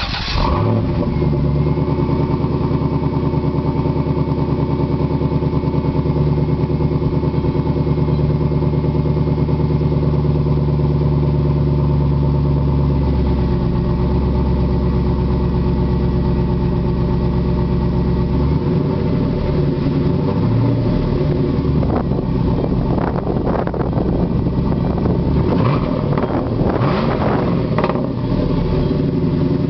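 The LS1 5.7-litre V8 exhaust of a 2000 Pontiac Trans Am WS6 catching on start-up and running at a steady idle. About two-thirds of the way through the idle turns uneven, with a few short blips of the throttle.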